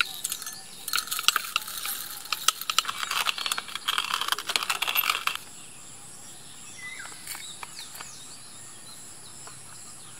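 A dense run of small, hard clinks and rattles, like many small hard pieces clattering together. It starts about a second in and stops suddenly a little past the middle.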